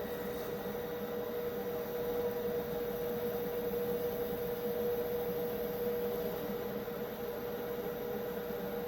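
A steady electrical hum with one constant tone and a faint hiss, unchanging throughout.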